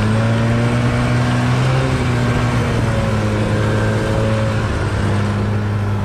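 STELS Viking 600 snowmobile engine running steadily under way, its pitch wavering slightly as it drives through snow-covered reeds.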